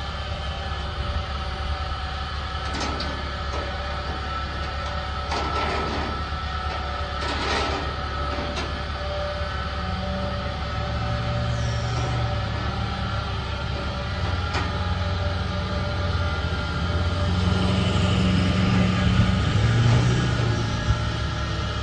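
Steady low mechanical drone of a large engine, with a few faint clicks early on, swelling louder for a few seconds near the end.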